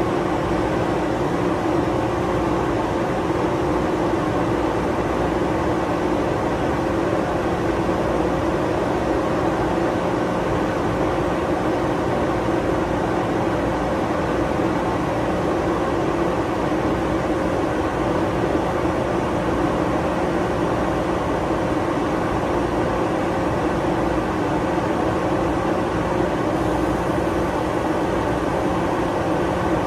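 Steady hum of a stationary 413 series electric train's onboard equipment running at the platform, with a constant whine over a hiss and no change throughout.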